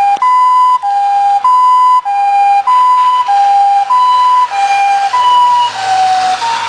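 Two-tone hi-lo emergency-vehicle siren, alternating a high and a low note about every 0.6 seconds. Near the end both notes drop slightly in pitch while a rushing noise rises under them.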